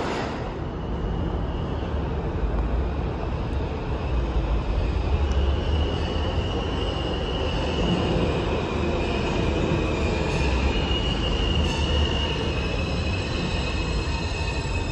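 R160-series New York City subway train running on the neighbouring track with a steady low rumble, its wheels squealing in high tones from about five seconds in.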